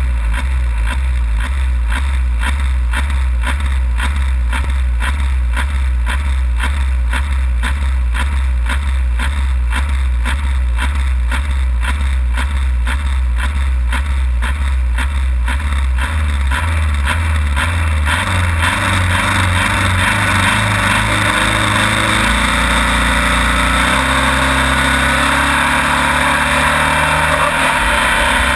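Competition pulling tractor's engine idling with a regular, loping beat, heard from the driver's seat. About two-thirds of the way through the sound turns busier and fuller, and near the end the revs climb.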